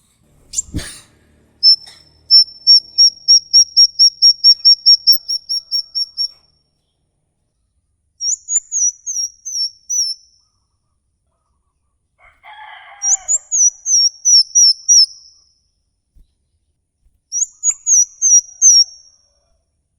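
A songbird's high, repeated 'giggling' call, used as a lure for caged birds. It opens with a steady run of about a dozen quick notes at three a second, then gives three short phrases of notes that drop in pitch. A sudden knock comes just under a second in, and a brief, lower, rougher call is heard about halfway through.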